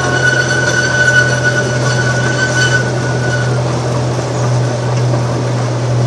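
Amusement-park train ride running, heard from an open passenger car: a steady rumble with a high, steady squeal over it that fades out about three and a half seconds in.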